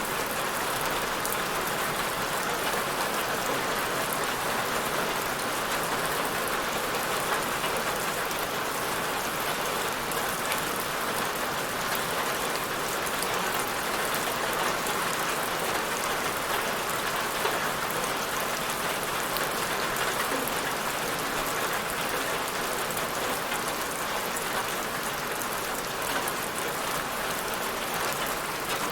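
Steady rain falling on a surface, an even hiss of many fine drops.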